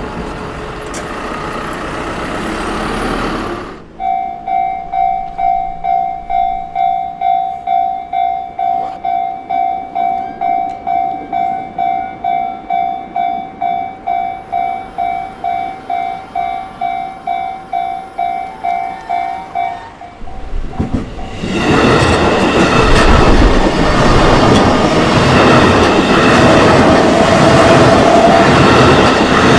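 A train passes for the first few seconds. Then a Japanese railway level-crossing warning bell rings steadily at about two dings a second for some fifteen seconds. Near the end a train runs through the crossing, loud, with the clickety-clack of its wheels on the rail joints.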